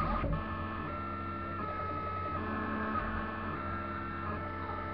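Delta 3D printer's stepper motors whining as the print head moves, in steady tones that shift pitch every fraction of a second as the moves change. Right at the start there is a brief sudden noise with a quick falling sweep.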